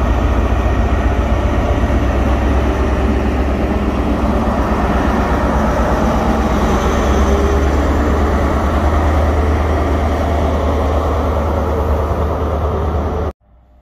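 InterCity 125 (HST) Class 43 diesel power car passing close by, a loud, steady diesel rumble with heavy low-end drone. It cuts off abruptly near the end.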